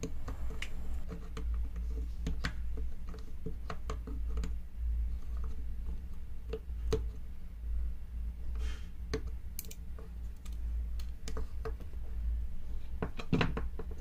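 Flush side cutters snipping the excess component leads off a freshly soldered circuit board: a string of short, irregular clicks over a steady low hum, with a brief louder sound near the end.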